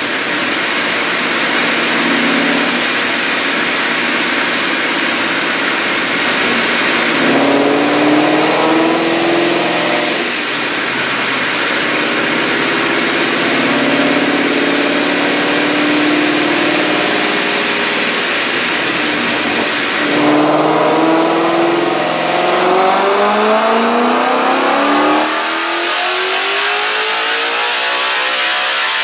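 Supercharged 5.0-litre Coyote V8 of a 2016 Mustang GT making a full-throttle dyno pull. The revs climb, steeply about three quarters of the way through, with the high whine of the Vortech JT-B centrifugal supercharger rising above the engine. The engine then drops off near the end as the pull ends.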